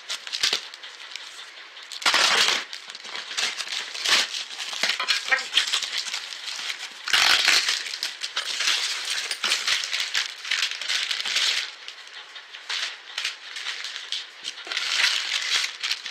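A cardboard parcel is torn open by hand: plastic wrapping and tape rip, cardboard tears and packaging crinkles in irregular bursts as packs of biscuits are handled.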